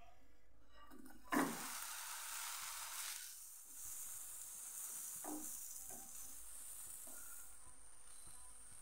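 A bread sandwich flipped over in a nonstick frying pan lands with a knock about a second and a half in, and the fresh side sizzles loudly against the hot pan, easing after a couple of seconds into a steady high sizzle. A few light knocks follow as a spoon presses the toast.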